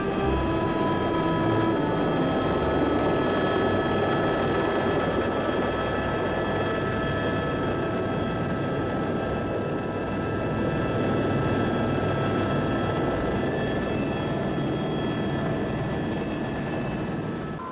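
Tour helicopter's turbine engine and rotor heard from inside the cabin, a steady whine over a loud rushing noise, as it comes down to land.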